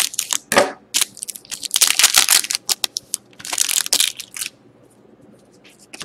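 Scissors snipping open a foil trading-card pack, then the foil wrapper crinkling in loud bursts as the cards are pulled out. From about four and a half seconds in, only faint rustles of cards being handled.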